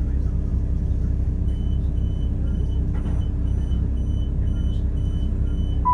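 Class 172 Turbostar diesel multiple unit heard from inside the passenger saloon: a steady low rumble of its underfloor diesel engine and running gear as it moves slowly. From about a second and a half in, a faint, rapidly repeated high beep sounds over it.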